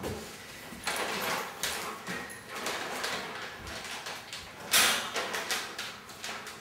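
A plastic treat bag crinkling and rustling as it is handled in uneven stretches, with a louder rustle about five seconds in.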